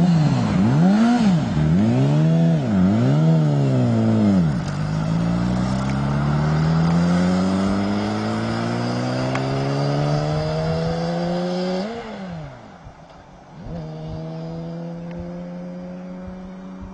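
Motorcycle engine revved in three quick blips, then accelerating in one long, smoothly rising pitch for about seven seconds. About twelve seconds in the throttle drops off, is blipped once more, and the engine settles to a steady, lower note.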